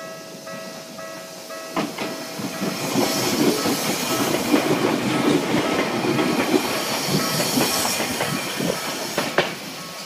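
Tokyu 7000 series electric train passing close by over a level crossing at low speed, its wheels clattering and clicking over the rail joints and crossing. The noise rises sharply with a click about two seconds in and fades near the end, while the crossing's warning bell keeps ringing underneath.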